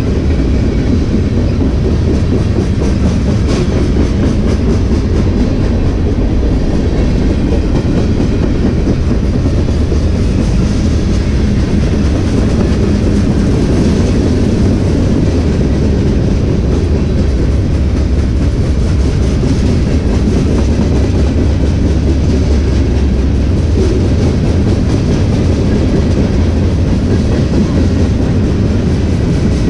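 Freight train of boxcars rolling past close by: a steady, loud rumble of steel wheels on the rails, with the clickety-clack of wheels over the track.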